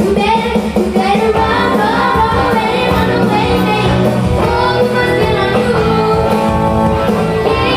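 Live band playing a pop-rock song, with singing.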